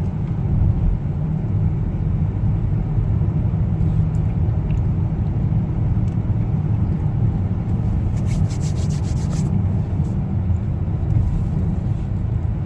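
Steady low road and engine rumble heard inside a moving car's cabin, with a short run of faint ticking about eight seconds in.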